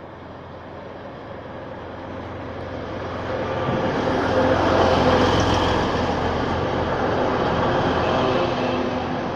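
Class 185 diesel multiple unit drawing into the station. Its engine and wheel noise grow louder over the first five seconds or so, then hold steady.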